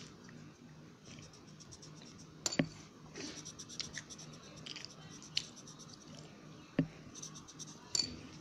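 Colouring on paper by hand: soft scratching of the colouring tool's tip across the sheet, with a few sharp clicks or taps.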